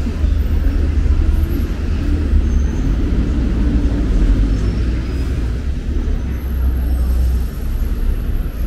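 Street traffic of cars and buses going by on the road, a steady low rumble.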